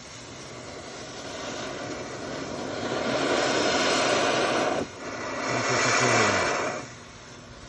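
Black Cat neon smoke devices, set off by a shared visco fuse, gushing smoke with a loud, rushing hiss that builds over a few seconds, dips briefly and then cuts off near the end.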